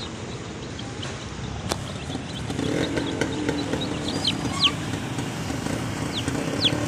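Dong Tao chicks peeping in short, high, falling chirps, in a cluster about four seconds in and again near the end. A low engine hum comes up underneath from about two and a half seconds in.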